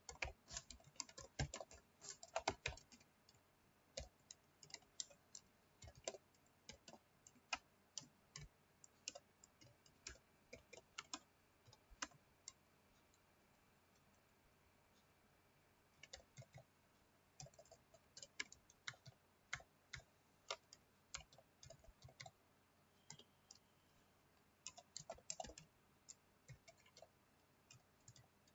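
Computer keyboard typing, faint quick keystrokes in runs, with a pause of about three seconds around the middle.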